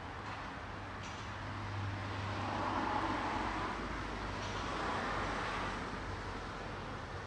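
Road traffic: vehicles passing by over a steady low hum, the noise swelling about three seconds in and again about five seconds in.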